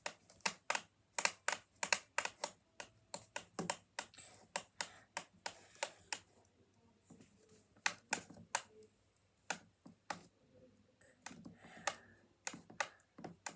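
Small plastic buttons on a digital alarm clock being pressed over and over, a quick irregular run of sharp clicks, several a second, with a couple of short pauses.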